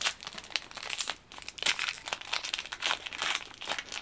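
Crinkling of a foil Yu-Gi-Oh booster-pack wrapper as it is handled, a dense run of irregular crackles.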